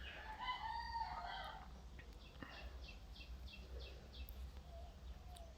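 Faint bird calls: a drawn-out, rooster-like crow lasting about a second, then a quick run of short high chirps from about two and a half seconds in.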